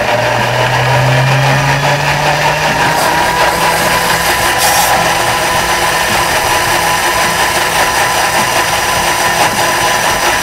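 Heated kitchen-robot blender running at high speed, puréeing cooked chestnuts into a smooth cream: a steady motor whine that creeps slightly up in pitch.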